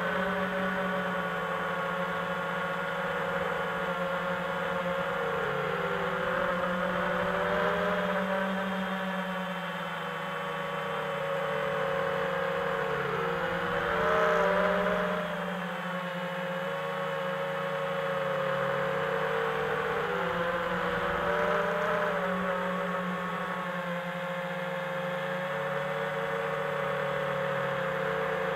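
Quadcopter's four T-Motor Velox 2306 2400 kV brushless motors and propellers whining in steady flight. Several motor tones weave up and down against one another as the throttle and attitude change, with a brief louder surge about halfway through.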